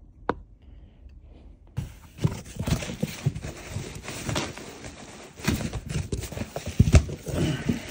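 Cardboard shipping box being opened by hand: one sharp click just after the start, then from about two seconds in a busy run of scraping, rustling and knocking as the flaps are folded back and the contents handled.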